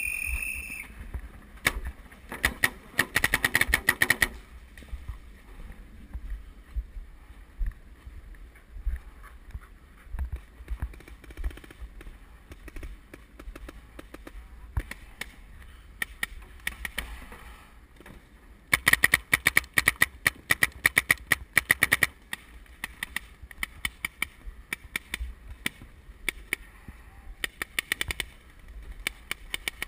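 Paintball markers firing: rapid bursts of shots with single shots scattered between, the densest bursts coming a couple of seconds in, about two-thirds of the way through and near the end.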